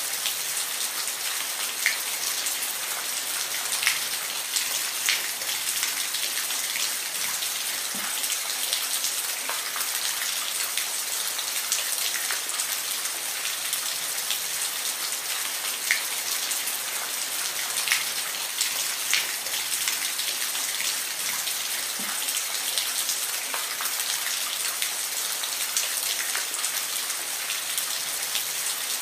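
Steady rain falling on a surface, an even hiss with scattered individual drops ticking sharply over it.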